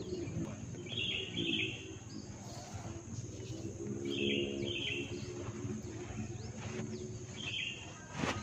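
A bird chirping in short paired notes, repeated about every three seconds, over a low steady background hum. A single sharp snap near the end.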